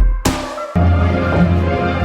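Background music with an electronic beat: a crash-like hit at the start, then a steady heavy bass line with held tones from just under a second in.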